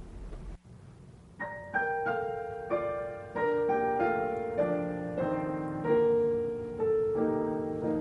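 Piano playing the introduction to a choral song, starting about a second and a half in: a run of notes over held chords.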